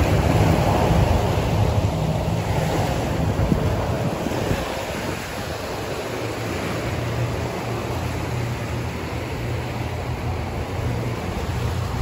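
Small waves breaking and washing up a sandy beach in a steady surf hiss, with wind rumbling on the microphone. The surf is a little louder for the first few seconds and eases off about five seconds in.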